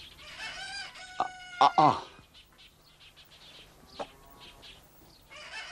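A rooster crowing once in the first two seconds, a held note that ends by falling in pitch. A single short knock about four seconds in.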